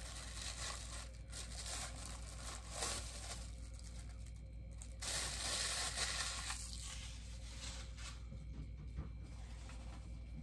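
Clear plastic packaging bag rustling and crinkling as it is handled and pulled off a bobblehead's base, in uneven spells that are loudest about five seconds in.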